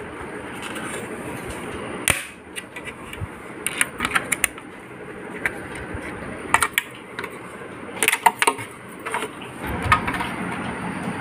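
Irregular plastic clicks and taps, some in quick clusters, as a hard white plastic extension table is handled and fitted against a mini sewing machine.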